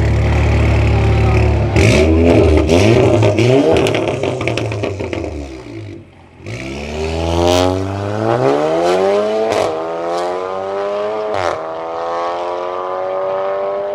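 Volkswagen Golf R Mk7's turbocharged 2.0-litre four-cylinder launching hard from a standstill: a low steady hum, then a burst of exhaust crackles as the revs shoot up about two seconds in. The pitch climbs through the gears, dipping briefly around six seconds, with a sharp crack at each later gear change.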